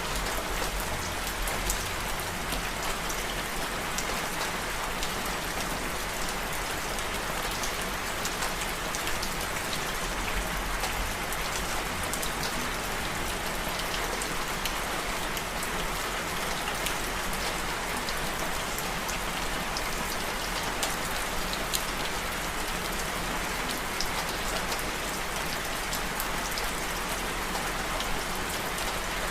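Steady rain falling, an even hiss of drops with scattered light patters from drops striking a surface.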